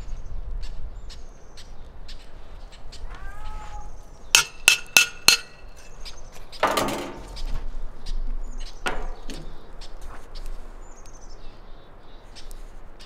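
Metal pot banged four times in quick succession about four seconds in, each strike ringing, to scare off a bear. A short rough burst of noise follows a little later.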